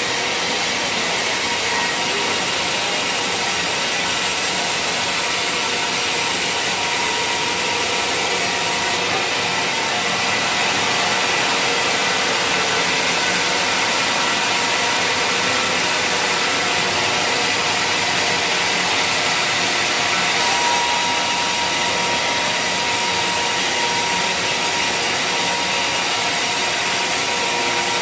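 Sawmill blade cutting steadily through waru (hibiscus) wood, a continuous hissing saw noise at an even level.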